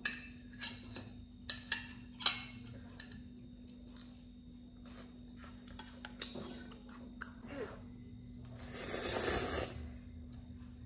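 A person eating instant ramen: a few sharp clicks and taps of metal chopsticks in the first seconds, then a loud slurp of a mouthful of noodles about nine seconds in that lasts about a second.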